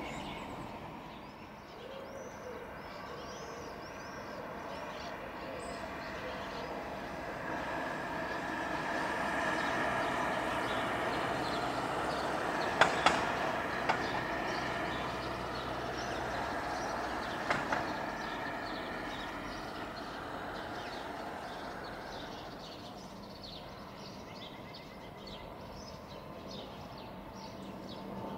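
Twin-engine Boeing 767-400ER airliner on approach, its jet engine noise swelling to a peak around the middle as it passes overhead, then fading away. A few sharp clicks sound near the middle, and birds chirp in the first few seconds.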